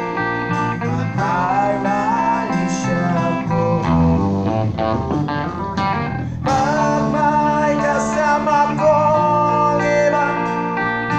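A live rock band playing: electric guitar, bass guitar and drum kit together, with a sharp crash about six and a half seconds in.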